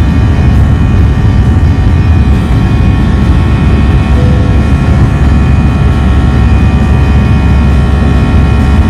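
Steady, loud, low rumble with a drone of steady tones above it, unchanging throughout, like engine noise.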